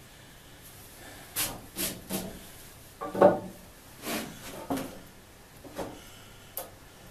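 Handling knocks and scrapes of a steel square being set against the freshly sawn end of a pine 4x6 beam on a wooden bench: a string of separate bumps and rubs, the loudest a heavier wooden knock about three seconds in.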